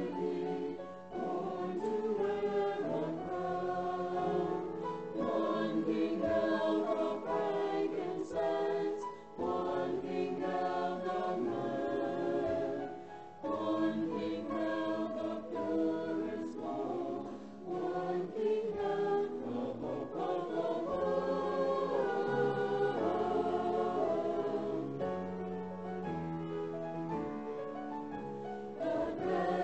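Mixed church choir of men's and women's voices singing, with short breaks between phrases.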